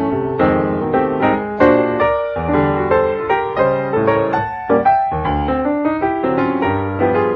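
Piano music: notes struck one after another, each fading away before the next.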